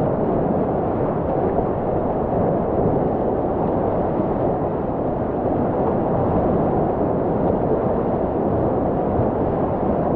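Whitewater rapids of a river rushing loudly and steadily around a kayak, a dull, muffled rush with little treble.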